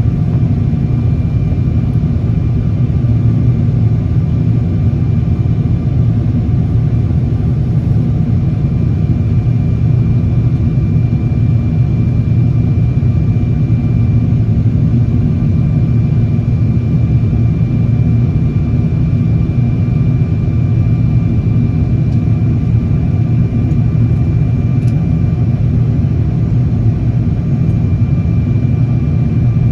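Steady in-cabin noise of a Boeing 777-200ER airliner in flight: a loud, even low rumble of engines and airflow, with a faint steady high whine over it.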